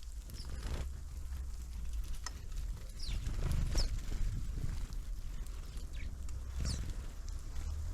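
Small birds at a feeder giving short, high call notes that fall in pitch, about five in all and spread out, over a steady low rumble and faint scattered ticks.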